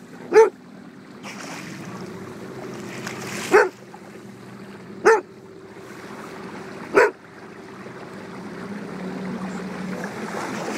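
Four short, sharp bark-like animal calls, spaced irregularly about one and a half to three seconds apart, over steady water and boat noise that grows louder toward the end.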